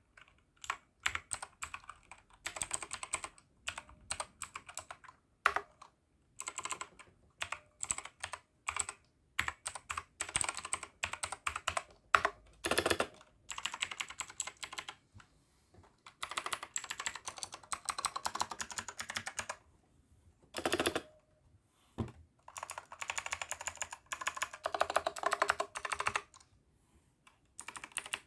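Typing on an AJAZZ AK871 mechanical keyboard with clicky blue switches: fast runs of keystroke clicks in bursts with short pauses between them, with a few heavier single strokes.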